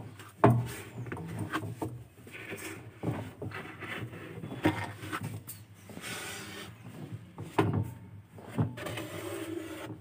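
A cloth rubbing over the plastic filter-box slot inside a Samsung top-load washing machine's tub, with uneven scrubbing and a few sharp plastic knocks as the hand bumps the housing.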